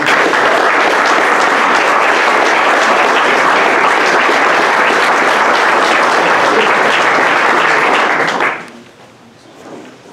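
Audience applauding steadily for about eight seconds, then dying away quickly.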